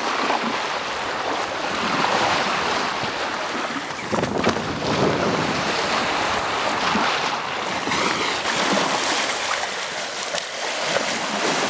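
Sea water rushing and splashing along a sailboat's hull as it sails, swelling and easing in surges, with wind gusting across the microphone.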